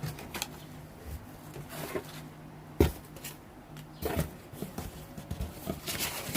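Items from a parcel being handled and unpacked: scattered rustling and small clicks, with one sharp knock about three seconds in, over a faint steady low hum.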